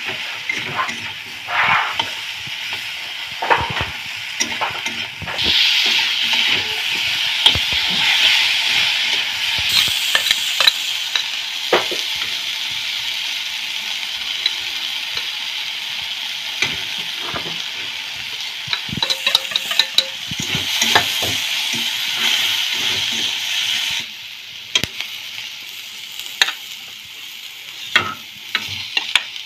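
Spices and brinjal sizzling in hot oil in a metal kadai while a metal spatula stirs, with scattered scrapes and clicks of the spatula against the pan. The sizzle grows louder about five seconds in and drops off near the end.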